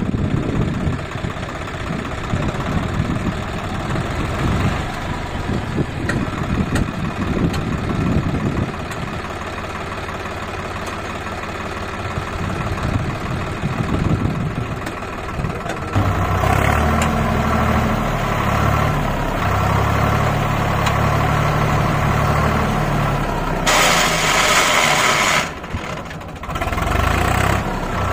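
Swaraj 744 FE tractor's three-cylinder diesel engine running, then revving up about halfway through and holding louder and steady as it drives the hydraulics that tip the loaded trolley. A brief rushing noise comes near the end.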